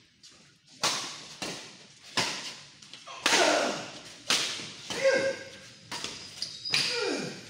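Badminton rally: rackets striking the shuttlecock again and again, sharp hits about one to two a second, each trailing off in hall echo, with a few short squeaky tones among them.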